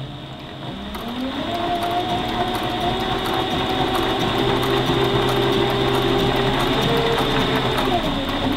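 Tandy Stitchmaster Pro leather sewing machine stitching through leather. Its motor speeds up about a second in, runs steadily with a fast ticking of needle strokes, then slows near the end.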